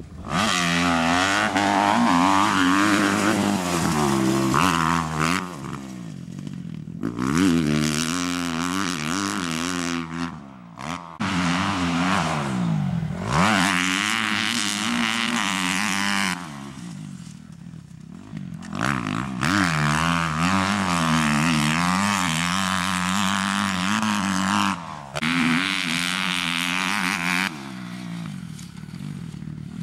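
Motocross dirt bike engines revving hard, the pitch climbing and dropping again and again with throttle and gear changes as bikes pass in several loud runs with short lulls between.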